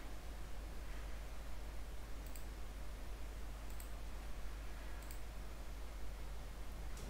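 Three faint computer mouse clicks, about a second and a half apart, over a steady low hum and hiss.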